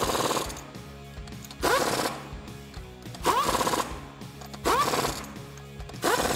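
Impact wrench running lug nuts onto a car wheel in five short bursts about a second and a half apart; each burst rises in pitch as the motor spins up, then breaks into rapid hammering.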